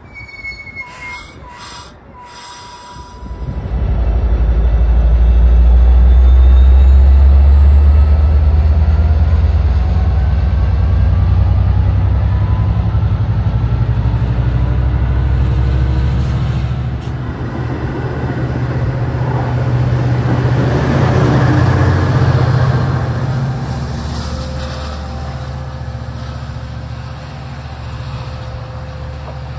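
Metra commuter train's diesel locomotive throttling up to pull out. A deep engine drone swells in about three seconds in and stays loud, with a thin whine slowly rising in pitch over it. It swells again later and then eases off near the end.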